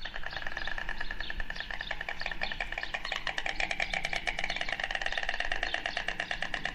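Stork clattering its bill: a rapid, steady wooden rattle of many strokes a second.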